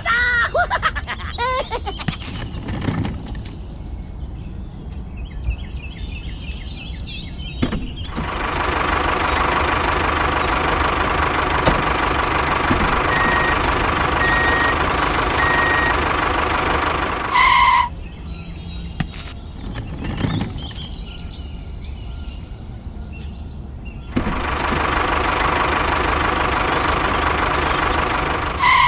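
Tractor engine running in two long stretches, each ending in a short loud horn beep. In the quieter gaps between, birds chirp.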